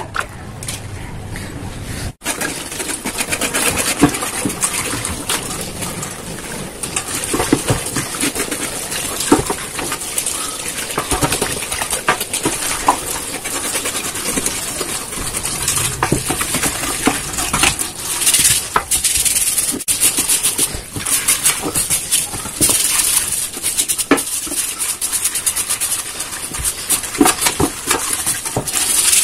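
A knife scraping a beef trotter and its hoof in a stainless-steel sink, with many short scrapes and clicks against the hoof and the metal. Tap water runs into the sink, and the trotter is scrubbed under it.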